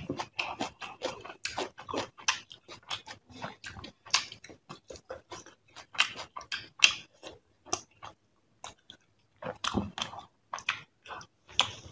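Close-miked eating sounds: wet chewing and lip-smacking in quick, irregular clicks, with a brief pause about two-thirds of the way through.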